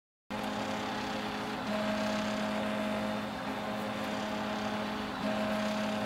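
3D printer's stepper motors, driven by clone A4988 drivers marked "4988A" with vref left unadjusted, singing steady musical tones as the print head moves. The tones shift to a new pitch every couple of seconds as the moves change.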